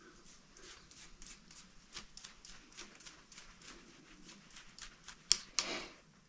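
A small hand tool scraping packed sawdust and oil gunk out of a chainsaw guide bar's groove and oiler hole: light metal scratches at about three a second. Near the end there is a sharp click and a short rustle.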